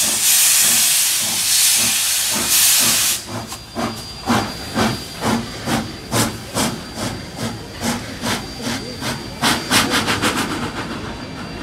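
NSWGR C32 class 4-6-0 steam locomotive 3265 starting away: a loud hiss of steam from its open cylinder drain cocks for about three seconds. Then come the sharp exhaust chuffs of the engine working, about two to three a second, fading as it moves off.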